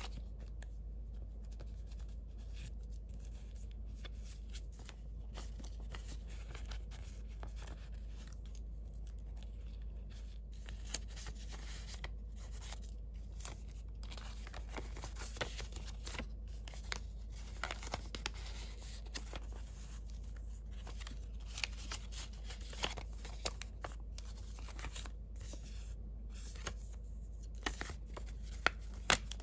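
Paper cards and ephemera handled by hand: light paper rustling with scattered crisp ticks and crackles, a few sharper ones near the end, over a steady low hum.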